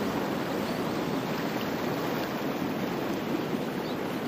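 Steady wash of sea waves against a rocky shore.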